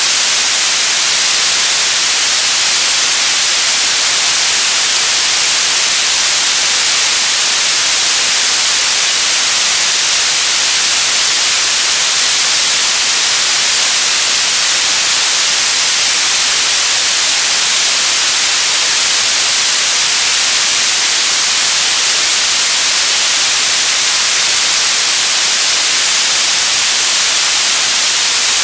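Radio static: a steady, loud hiss of noise, strongest in the treble, unchanging throughout.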